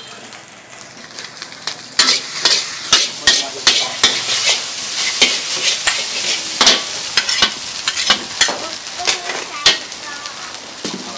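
Food sizzling in a hot pan while a metal utensil repeatedly clanks and scrapes against it: stir-frying. The clanks start about two seconds in, quick and sharp over a steady sizzle.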